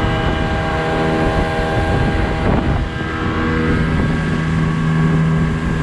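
Tohatsu 9.8 hp short-shaft outboard running at speed, driving a small inflatable boat, with water rushing and wind on the microphone. The engine note shifts about halfway through, then holds steady.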